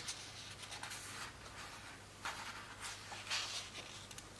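Paper rustling as the page of a hardcover picture book is turned by hand, in a few brief swishes, the loudest about three seconds in.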